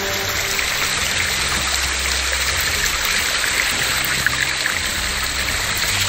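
Water running and splashing over rocks in a waterfall stream, a steady rush.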